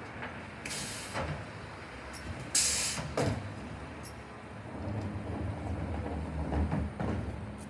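Mercedes-Benz refuse lorry's diesel engine running at standstill, with two short, loud hisses of released air about a second in and again near three seconds. The engine grows louder from about five seconds in.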